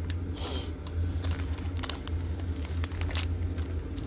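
Foil wrappers of Topps 2024 Series 1 jumbo trading card packs crinkling as the packs are handled and stacked, in several short sharp crackles over a steady low hum.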